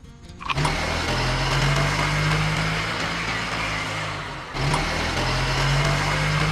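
Truck engine running steadily. It dips and cuts out briefly about four and a half seconds in, then starts again.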